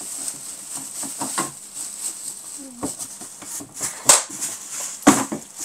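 Plastic bin liner rustling and crinkling as it is pushed down into a plastic dustbin, with a few sharp taps and clicks in the second half.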